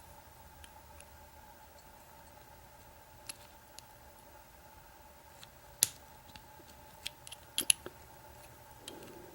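A few short, sharp metal clicks and taps, the loudest about six seconds in and a quick cluster near eight seconds: small tools and parts of a Sesamee 936 padlock's cylinder being handled as the lock is taken apart.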